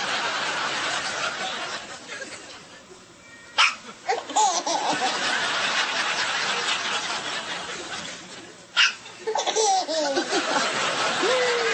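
An 8-month-old baby hiccupping twice, two short sharp hiccups about five seconds apart, each followed by squeals and gliding baby vocal sounds, amid laughter.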